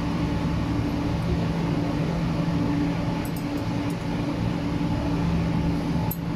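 Steady drone of running workshop machinery, with a couple of low steady hum tones, and a few faint light clicks about halfway through.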